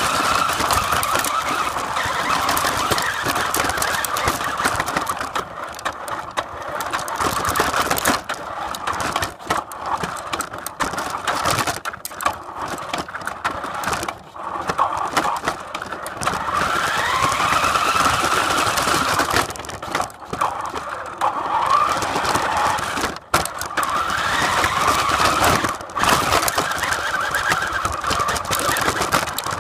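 Open-top vehicle driving, with wind buffeting and road noise in an uneven rush over the engine. The engine or drivetrain whine rises in pitch several times as the vehicle picks up speed.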